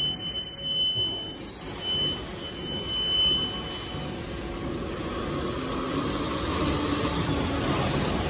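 Three-side sealing bag-making machine running steadily, a dense mechanical noise, with a thin high tone that comes and goes through the first half.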